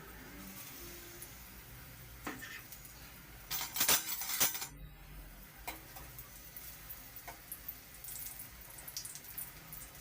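Kitchen utensils and dishes clinking and scraping, with a louder clatter about four seconds in that stops abruptly.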